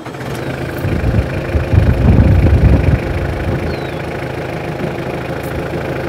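Compact diesel tractor engine running steadily while the hydraulic lift raises a mid-mount mower deck; the engine sound swells louder for about two seconds starting about a second in, then settles to a steady level.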